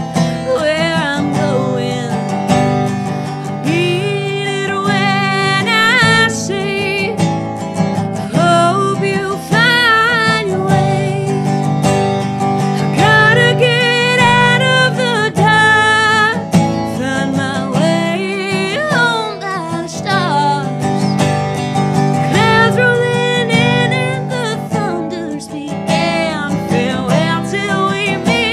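A woman singing a country-folk song with a powerful voice and a wavering vibrato on her held notes, accompanying herself on an acoustic resonator guitar.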